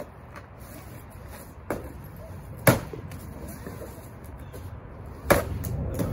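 Wooden stick whacking a hanging papier-mâché llama piñata: three sharp knocks a second or more apart, the second the loudest.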